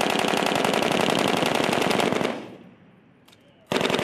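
Belt-fed 7.62 mm M240B machine gun firing a long, rapid burst that stops a little over two seconds in. A second burst starts near the end.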